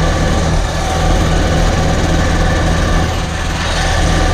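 Coleman CT200U mini bike's small single-cylinder engine running steadily at riding speed, with tyre and wind noise from the gravel road.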